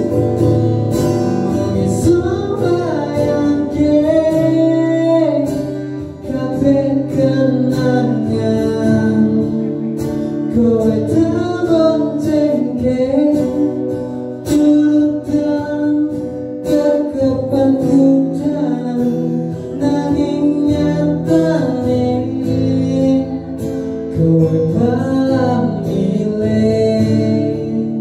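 A man singing into a microphone, accompanying himself on a strummed acoustic guitar.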